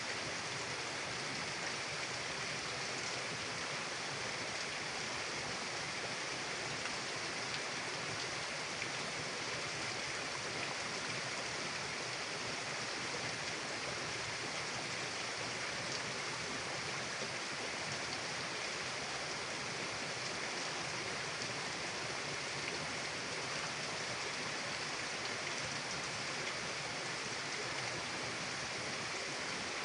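Mountain river flowing, a steady even rush of water.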